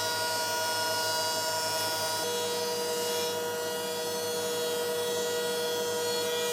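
Thickness planer running with its dust collection, a steady machine drone with several whining tones; about two seconds in, a new, lower tone joins the mix.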